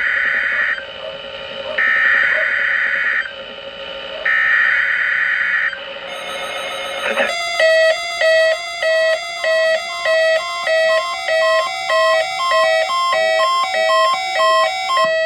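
Emergency Alert System SAME header: three bursts of buzzing digital data tone, each about a second and a half long with short gaps. About seven seconds in, a pulsing electronic alert beep starts at about three beeps every two seconds, signalling an incoming alert.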